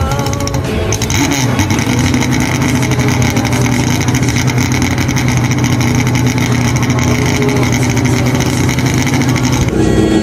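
Turismo Carretera replica race car's engine idling loudly. Its pitch rises and falls briefly in the first second or so, then holds steady at an even idle.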